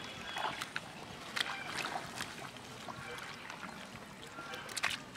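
Hands digging and groping in wet mud and shallow water, giving irregular squelches and small splashes.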